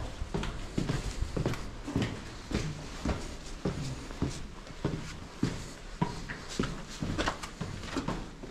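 Footsteps walking on hard ground, about two steps a second, each step a sharp knock with a low thud.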